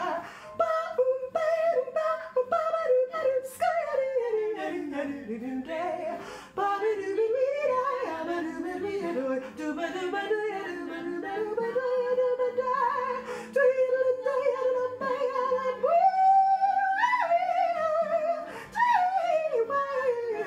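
A woman singing solo without words, her voice sliding up and down in pitch. There is a long falling slide about four seconds in, a held note in the middle, and a jump up to a higher line about sixteen seconds in.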